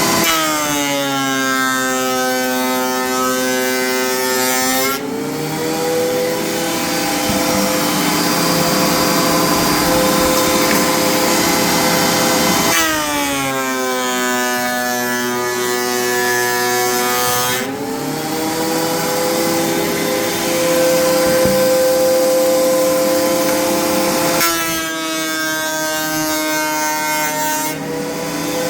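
13-inch thickness planer running loud. Its motor whine drops in pitch three times, for about four to five seconds each, as a board is fed through under the cutterhead, and climbs back when the board clears.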